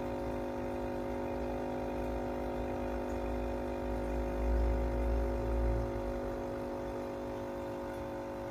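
Steady electrical hum of aquarium equipment, a drone of several steady tones, with a low rumble swelling for about two seconds midway.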